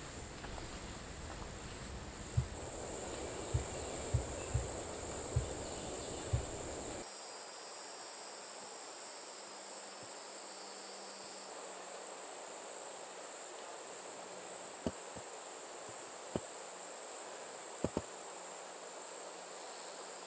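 Insect chorus: a steady high-pitched buzz of insects in the woods. A few soft thumps sound in the first six seconds, and a few sharp clicks near the end.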